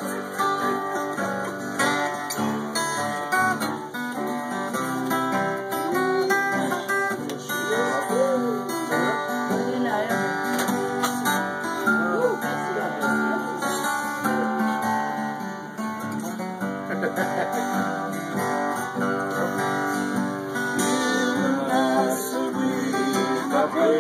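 Two acoustic guitars playing a song together, with strummed chords and picked notes. A man's voice sings over them near the end.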